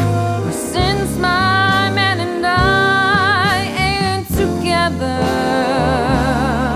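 Big band swing recording: sustained notes sung or played with heavy vibrato over the band and a stepping bass line.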